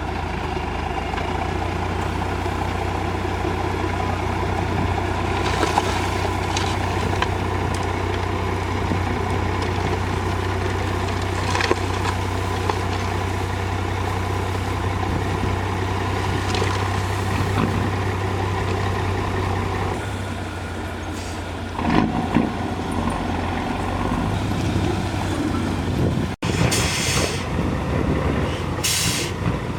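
Heavy diesel engines of a backhoe loader and dump trucks running steadily. After about twenty seconds the engine note changes, with knocks and then two short hisses near the end.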